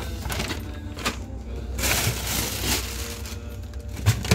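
Plastic bag crinkling and plastic containers knocking against a cabinet shelf as things are taken out, with a sharp knock near the end.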